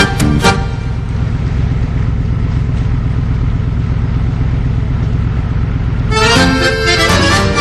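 Off-road vehicle engine running with a steady low rumble, between stretches of accordion music that stops about half a second in and comes back about six seconds in.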